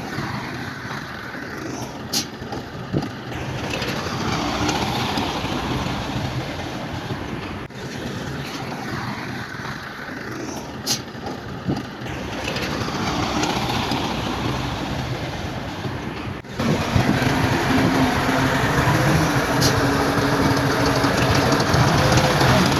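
Crawler bulldozer working: its diesel engine running under load with the clatter of steel tracks and a few sharp metallic clicks. The sound changes abruptly twice and is louder after the second change.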